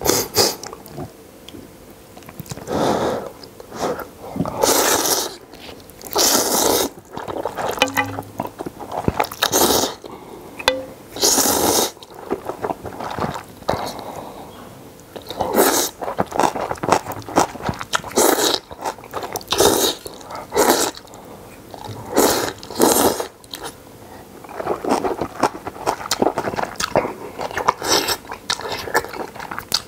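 A person eating spicy instant ramen noodles close to the microphone: a series of loud slurps of noodles and broth, with wet chewing and mouth clicks in between.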